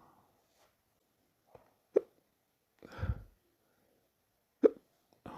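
A man hiccuping: two sharp hiccups about two and a half seconds apart, with a faint catch before the first and a short, low breathy sound between them.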